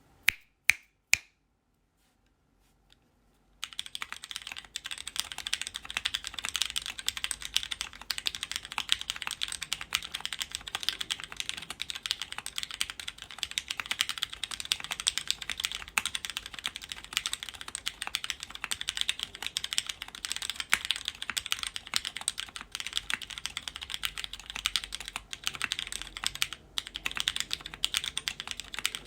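Custom Garderie TKL mechanical keyboard with MX Black linear switches, an O-ring-mounted full aluminium plate and DCS Reaper keycaps, typed on quickly and continuously from about three and a half seconds in. Three loud, sharp clicks come in the first second or so, followed by a short pause.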